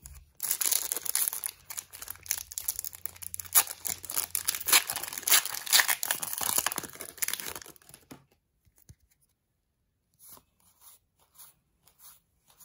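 Foil Pokémon booster pack wrapper being torn open and crinkled, a dense crackling that runs for about eight seconds. After that come a few faint ticks as the cards are handled.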